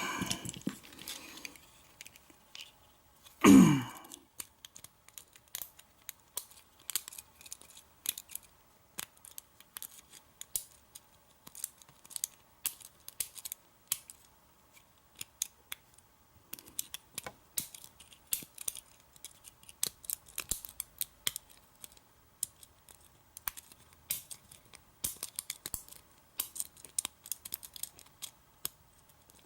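Irregular small metal clicks and scrapes of hand work on a Kwikset pin-tumbler lock: picking and raking the cylinder and handling its parts and pins. One brief louder sound about three and a half seconds in.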